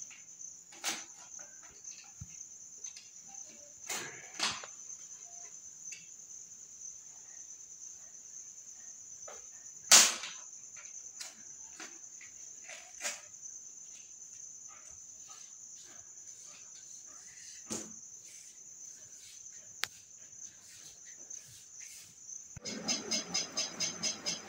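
Vinyl wall sticker being handled and pressed onto a wall by hand: scattered soft rustles and taps, with one sharp tap about ten seconds in, over a steady high-pitched chirring. Near the end a fast, even pulsing starts, about four or five beats a second.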